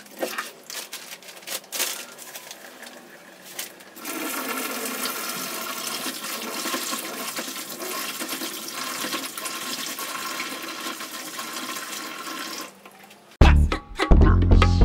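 A kitchen wall tap running into a stainless steel sink, steady for about eight seconds after a few light clicks and knocks. The water stops and music with a heavy bass beat comes in near the end.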